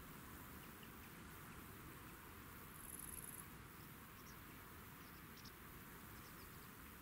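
Near silence: a faint hiss of open countryside, with a brief high-pitched insect call about three seconds in.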